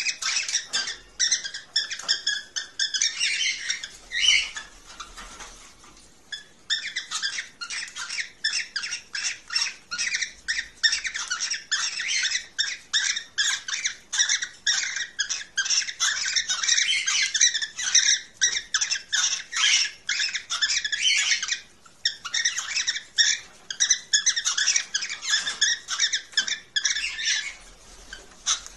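Cockatiels chattering in a fast, continuous run of short high chirps and squawks, the kind of calls played as a mating sound to stimulate breeding, with brief lulls about five seconds in and again around twenty-two seconds.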